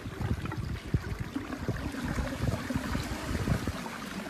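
A boat moving on a calm river: water noise along the boat, with irregular low rumbling from wind on the microphone.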